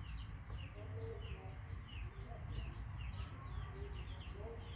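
A small bird chirping over and over, short falling notes at about two a second, over a steady low rumble.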